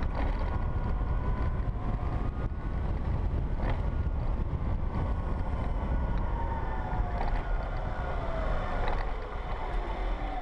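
Wind rushing over the microphone of a riding 2012 Zero S electric motorcycle, with the thin whine of its electric drive over it; the whine falls in pitch over the last few seconds as the bike slows.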